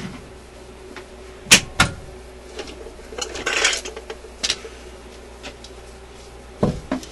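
Clicks, knocks and a brief scrape as the turntable platter of an Admiral suitcase record player is lifted off its spindle and set down: two sharp knocks, a scraping rustle about halfway, and a few more knocks near the end.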